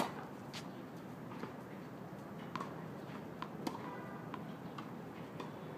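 Tennis racket striking the ball on a serve: one sharp, loud hit right at the start. Faint scattered ticks and knocks follow.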